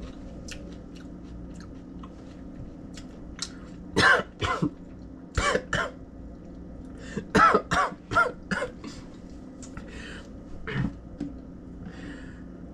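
A man coughing and clearing his throat in a series of short bursts, starting about four seconds in, as the heat of a freshly bitten Thai chili hits his throat.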